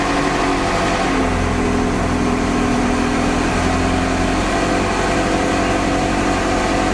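Ferrari 360 Modena's 3.6-litre V8 idling steadily at raised revs just after a cold start, heard from inside the cabin. It holds its revs cleanly, which the owner takes as the cold-start problem cured by cleaning the MAF sensors.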